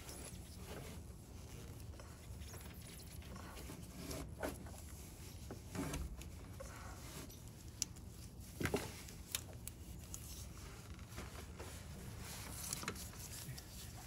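Faint scattered ratchet clicks and small metal taps from a click-type torque wrench being seated on a belt tensioner bolt and ratcheted down, with a cluster of sharper clicks a little past halfway.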